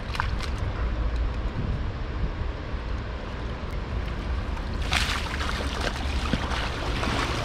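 Steady wind rumble on the microphone over a constant rush of outdoor noise, with a louder hissing rush for a second or two about five seconds in.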